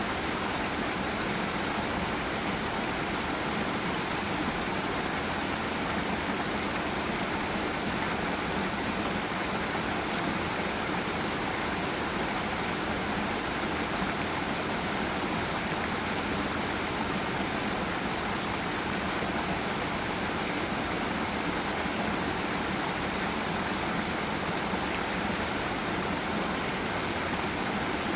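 Forest stream or small waterfall: water rushing steadily over rocks in an even, unbroken wash of noise.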